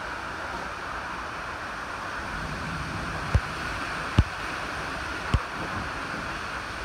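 Heavy rain falling steadily, a dense even hiss. About halfway through come three short low thumps, roughly a second apart.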